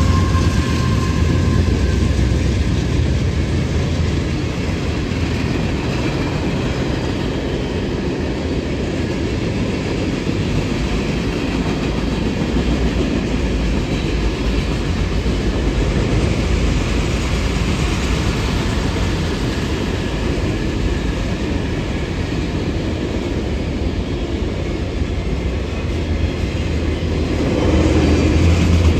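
Train rolling past on the track: a steady loud rumble with rail and wheel noise from the cars. A few high tones fade out in the first couple of seconds, and a deeper drone builds near the end.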